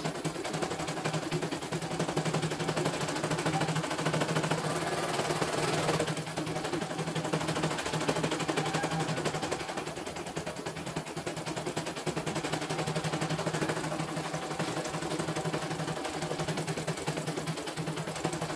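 CNY E900 portable computerised embroidery machine stitching at high speed: a rapid, steady needle clatter over a steady low motor hum.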